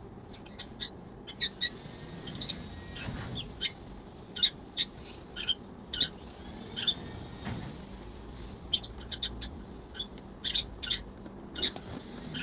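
Scattered short clicks and taps from a caged parrot and its cage, irregularly spaced, over a low steady hum.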